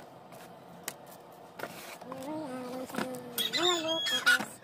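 A rooster crowing: one long, drawn-out call that starts about two seconds in and runs to near the end. Before it come a few light clicks and crinkles of cardboard and plastic packaging being handled.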